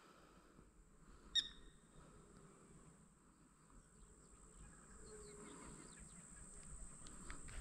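Faint outdoor ambience: a steady high hiss under quiet background noise, with one short bird chirp about a second and a half in.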